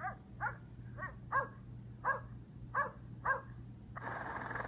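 Cartoon dog barks from a children's puzzle app on a tablet: seven short, alike yaps about every half second. Near the end a steady rushing noise sets in.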